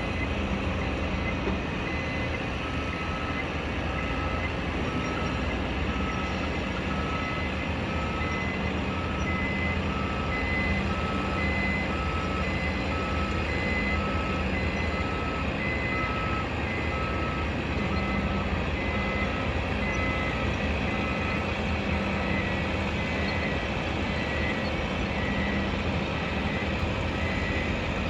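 Reversing alarms on construction vehicles, two of them at different pitches, each beeping about once a second. The lower-pitched one stops about three quarters of the way through. A steady low rumble of heavy machinery and traffic runs underneath.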